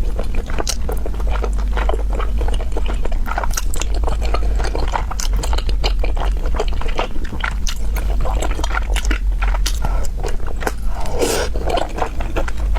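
Close-up chewing and biting of a roast chicken leg: a steady run of small wet crackles and clicks, with a louder cluster of bites about eleven seconds in, over a steady low hum.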